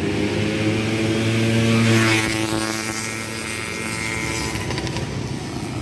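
A motorcycle passes by. Its engine note is loudest about two seconds in, then drops in pitch and fades as it moves away.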